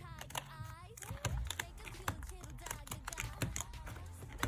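Rapid light clicks and taps of an album's packaging and inserts being handled.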